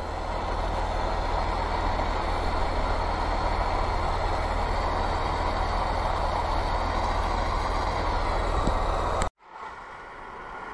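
Handheld induction heater buzzing steadily with a strong mains hum as its coil heats a bolt on a tractor's front hub until it glows red. The sound cuts off abruptly about nine seconds in.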